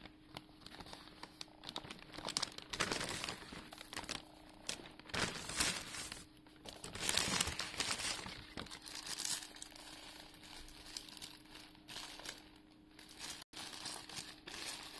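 Paper crinkling and rustling in irregular bursts from a McDonald's paper takeaway bag, wrappers and napkins being handled as the meal is unpacked, with a faint steady hum underneath.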